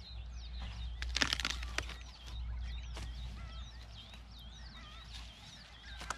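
Hoe blades striking and scraping weedy soil, a few sharp knocks about a second in and again near three seconds, while a bird repeats short swooping chirps.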